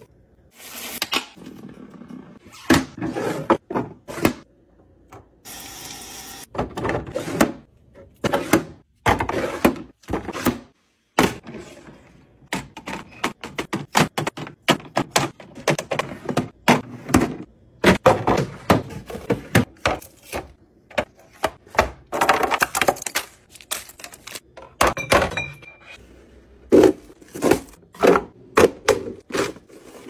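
Clear plastic fridge organizer bins, an egg-holder drawer and a salad spinner being handled on a countertop: a long run of irregular clicks, clacks and thunks of hard plastic knocking and sliding.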